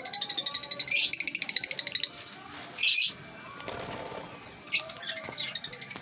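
Lovebirds chattering: quick runs of high-pitched chirps, fastest and densest in the first two seconds, then shorter bursts later.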